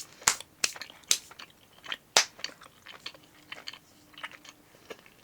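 Close-miked chewing of a mouthful of cupcake: wet mouth clicks and smacks, several sharp ones in the first couple of seconds, then softer and sparser.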